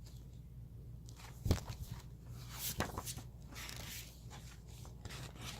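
Pages of a paper guide book being handled and turned: light rustling, with a sharp tap about one and a half seconds in and a weaker one near three seconds.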